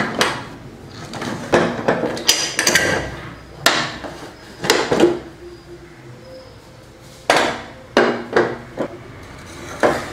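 Aluminium pressure cooker lid and pot being handled: a series of sharp metallic knocks and clanks at irregular intervals, some ringing briefly.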